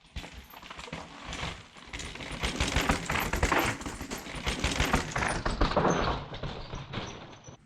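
A dog barking over dense clattering and crackling noise, loudest in the middle few seconds.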